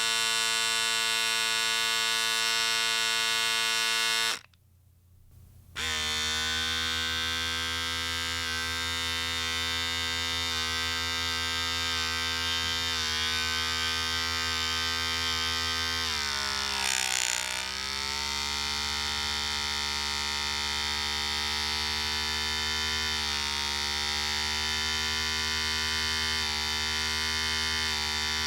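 Electric shaver running with a steady buzz that stops about four seconds in; after a short silence a second electric shaver starts and buzzes steadily, its pitch sagging for a moment about halfway through and then coming back up.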